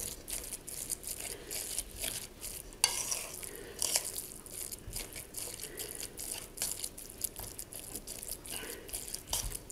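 A spoon stirring and scraping a wet minced-beef stuffing mixture in a stainless steel bowl, with irregular clicks of the spoon against the metal.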